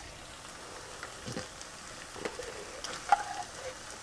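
Onions and garlic sizzling faintly in butter in a skillet, with a few soft scrapes as thick condensed soup is scooped out of a can with a spatula.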